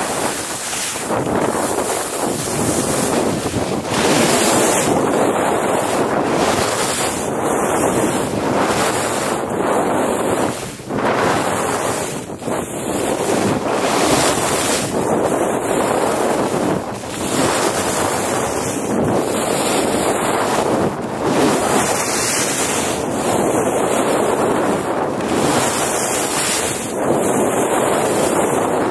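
Wind rushing over the microphone mixed with the hiss and scrape of skis carving on snow during a fast downhill run, swelling and dipping every couple of seconds with the turns.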